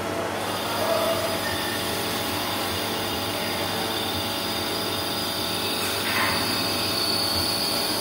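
Metal lathe turning a metal part with a carbide insert tool under coolant: steady machining and cutting noise. A thin high-pitched whine comes in about half a second in and grows stronger near the end.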